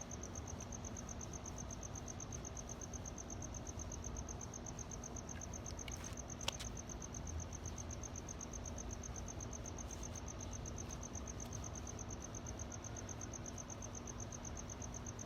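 A cricket chirping in a steady, rapid high-pitched trill of even pulses, with a faint low hum underneath and a couple of light clicks about six seconds in.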